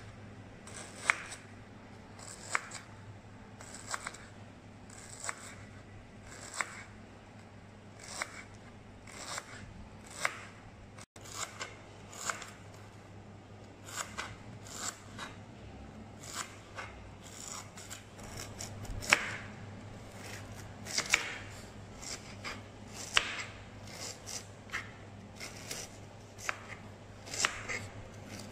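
Kitchen knife slicing lemongrass into thin rounds on a wooden chopping board, each cut ending in a short sharp knock of the blade on the board. The cuts are spaced about a second or more apart at first and come quicker in the second half.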